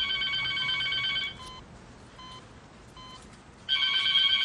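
Telephone ringing with an electronic ring of several steady high tones: one ring ends about a second in, and the next starts near the end.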